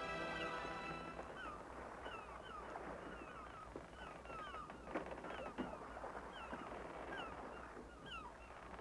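Faint bird cries, many short falling calls, over the quiet ambience of a fishing boat on water, with a few light knocks in the middle. Music fades out in the first second or so.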